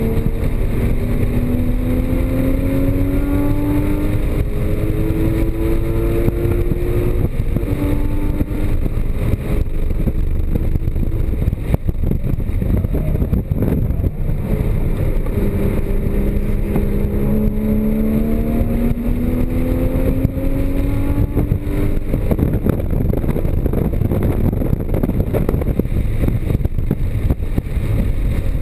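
Porsche Cayman GTS's flat-six engine accelerating hard under heavy low road and wind rumble, its note rising and stepping down at each upshift through the first eight seconds or so. After a stretch where the engine note fades into the rumble, it climbs through the revs again from about fifteen seconds in.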